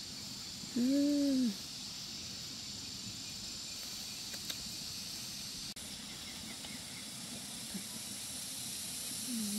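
Steady high-pitched insect chorus. About a second in comes a short hummed voice sound, rising then falling in pitch, the loudest thing here, and a fainter one at the very end.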